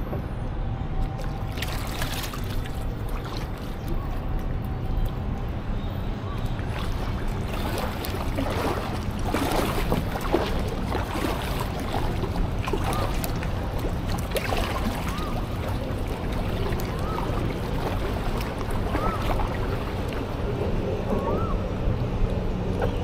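Packraft paddling: a paddle dipping and splashing in the water, with the densest splashing about a third of the way in, over a steady low rumble.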